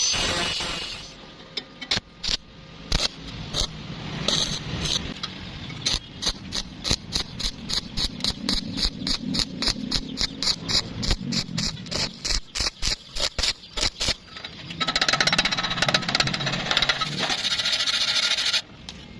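Welding arc struck in rapid short pulses, about three to four a second, as a hole in thin square tubing is filled bit by bit to avoid burning through. Near the end it runs as one continuous crackling bead for about three seconds, then cuts off suddenly.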